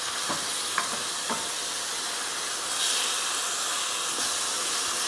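Spice and yogurt mixture sizzling in a stainless steel pan as it is stirred with a wooden spoon, with a few light knocks of the spoon against the pan in the first second and a half. The sizzle swells slightly about three seconds in.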